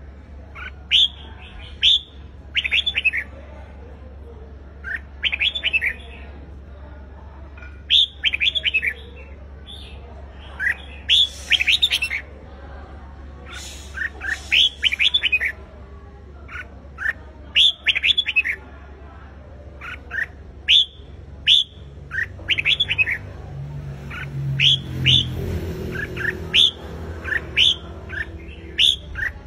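Red-whiskered bulbul singing its fighting song: short, quick phrases of clear sweeping whistled notes, repeated every second or two.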